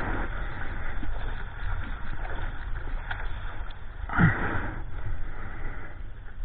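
Ocean water sloshing and splashing around a 9-foot Ron Jon surfboard as it moves through small waves, under a constant low wind rumble on the microphone. A louder splash comes about four seconds in.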